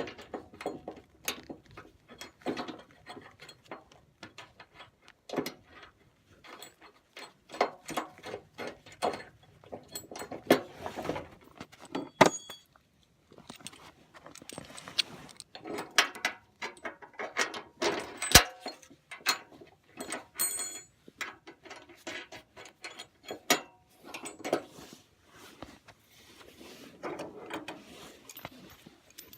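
Hand tools and steel hardware being worked on a snow plow's skid shoe brackets: irregular metal clinks, clicks and knocks as bolts and nylock nuts are fitted and tightened, some with a short metallic ring.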